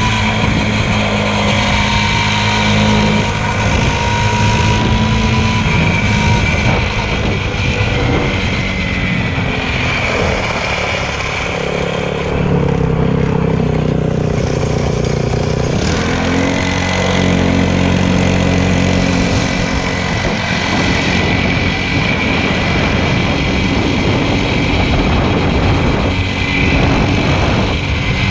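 Motorcycle engine running continuously, its pitch falling and rising as the throttle changes.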